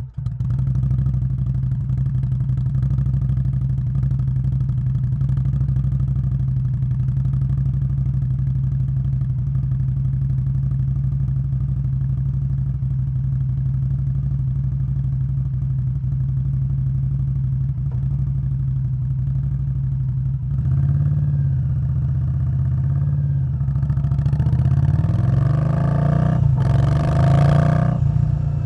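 2021 Indian Scout Bobber Twenty's V-twin engine through a Vance & Hines Twin Slash exhaust, idling steadily right after starting. About twenty seconds in, the revs rise and fall in short blips, then climb higher near the end with a brief dip.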